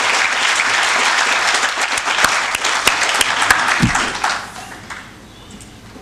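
Audience applauding. The clapping thins into a few separate claps and dies away about four and a half seconds in.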